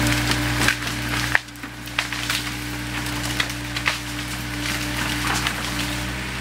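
Caterpillar 307 excavator's diesel engine running steadily while branches and brush crack and snap under its arm, in a series of sharp cracks. The engine drone drops sharply about a second and a half in, then picks up again.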